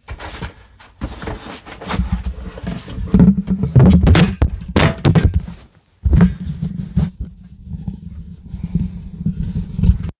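Handling noise on a microphone that has dropped off its mount: repeated loud thumps and scraping rubs against the mic, over a low rumble. It cuts out briefly about six seconds in.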